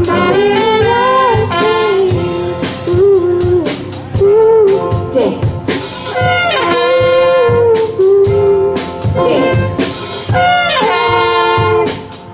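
Live band music by a student garage band: saxophone and trumpet carry a melody over drums, bass and keys.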